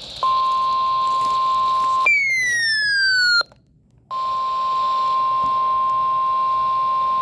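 Weather radio alert tones that herald an incoming warning. A steady, high beep starts a moment in and holds for about two seconds, then gives way to a falling, siren-like sweep. After a brief silence the steady beep resumes and holds.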